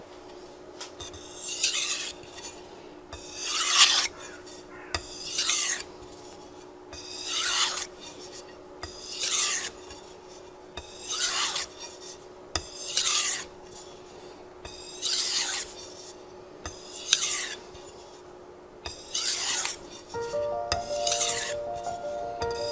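Japanese chef's knife drawn across a fine #5000 whetstone in slow, regular strokes, about one every two seconds, each a short wet scrape: the final edge-refining and polishing stage of sharpening. Soft music comes in near the end.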